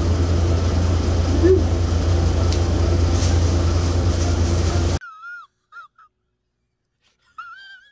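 Steady loud low machine hum, with faint clicks and a brief small squeak about a second and a half in. After about five seconds it cuts off suddenly to near silence with a few faint wavering high tones.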